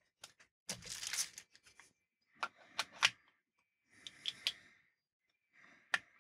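Plastic wrapping rustling as a handheld two-way radio is unwrapped and handled, followed by a series of sharp plastic clicks, the sharpest near the end.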